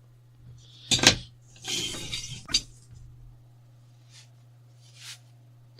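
Small hard objects handled and set down on a desk: two sharp knocks about a second in, then a clinking clatter lasting about a second, and a couple of faint taps later.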